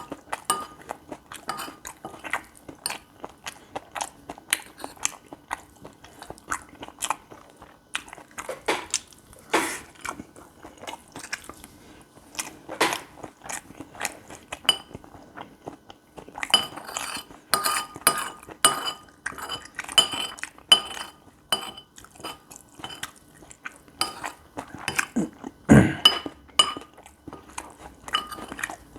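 Close-miked eating of gopchang fried rice: chewing and crunching mixed with a metal spoon clinking and scraping against the dish. In the middle comes a run of ringing clinks about two a second, and near the end a single dull knock.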